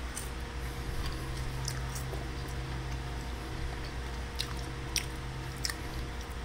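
A person chewing a seasoned Cajun french fry, the mouth noises soft apart from a few sharp little clicks late on.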